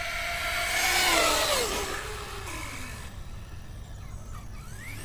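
Pro-Line Pro-MT 4x4 1/10-scale electric monster truck running flat out on 4S. Its motor and gearing give a high whine that is loudest about a second in, then drops steadily in pitch and fades. A short rising whine near the end marks it speeding up again.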